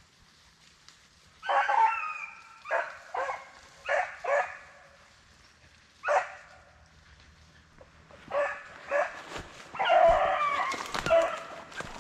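Beagles baying on a rabbit's trail: a longer bay about a second and a half in, then short barks scattered over the next several seconds, and a longer drawn-out stretch of baying near the end.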